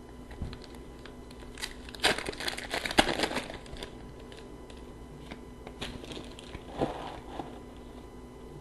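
A foil hockey card pack being torn open, its wrapper rustling in a burst about two seconds in, followed by a few light clicks of cards being handled and flipped.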